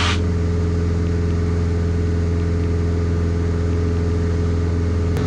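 Single-engine light aircraft's piston engine and propeller droning steadily at climb power, heard inside the cockpit: a strong low hum with a few steady higher tones above it.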